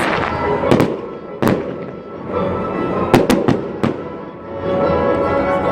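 Aerial fireworks shells bursting in a series of sharp bangs, with a quick cluster about three seconds in. Music plays underneath and grows louder near the end.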